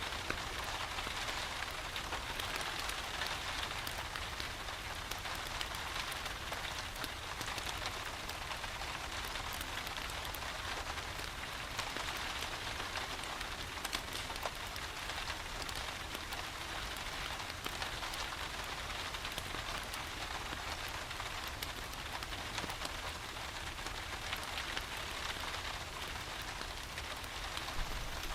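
Steady rain falling, with scattered sharp ticks of drops and a low rumble underneath.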